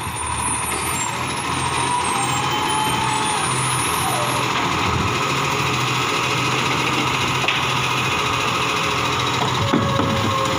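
Iveco side-loader garbage truck's engine running as its hydraulic arm lifts a wheelie bin and tips it into the hopper. A few knocks near the end as the bin is set back down.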